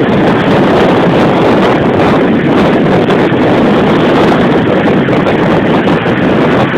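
Loud, steady rush of wind over the microphone and road noise from a vehicle travelling at speed.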